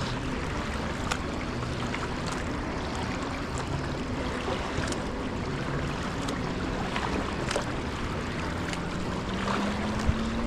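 Kayak paddling on calm water: water splashing and dripping off the paddle blades in scattered small splashes, over a faint low hum that rises slightly in pitch near the end.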